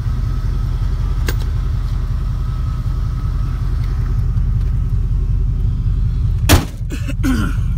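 Vehicle engine running with a steady low rumble, and a single loud sharp thump about six and a half seconds in.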